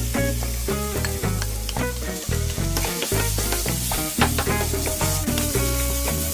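Food sizzling as it fries in a pan, with a steady hiss that grows denser about a third of the way in, over light background music with a melodic line.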